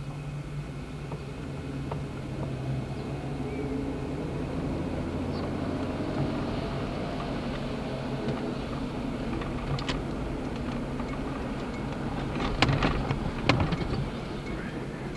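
A vehicle running along a city street: a steady low hum, with a sharp click about ten seconds in and a louder few knocks near the end.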